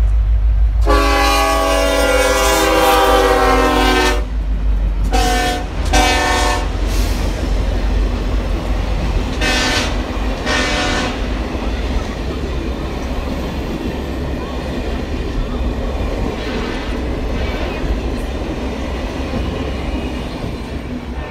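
Union Pacific diesel locomotive's multi-note air horn sounding loud: one long blast of about three seconds, then two short blasts, then two more short blasts a few seconds later. After that the train's passenger cars roll past with a steady rumble and clatter of wheels on the rails.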